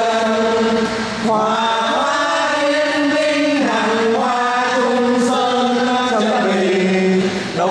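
A group of voices singing or chanting together in unison, in long held notes that step from pitch to pitch.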